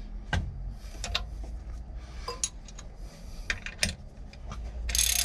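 Steel hand wrenches clinking and tapping against the belt pulleys and brackets of a Mercruiser 350 MPI engine as they are fitted and swapped, a scatter of short metallic clicks. Near the end a ratchet wrench starts clicking on a pulley bolt.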